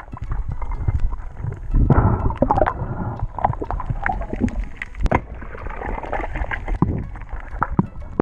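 Muffled underwater gurgling and sloshing picked up by a submerged camera, with scattered sharp clicks and knocks.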